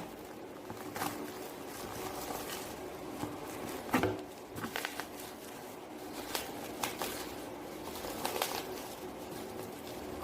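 Light clicks and knocks of objects being handled, a few every couple of seconds with the sharpest about four seconds in, over a faint steady hum.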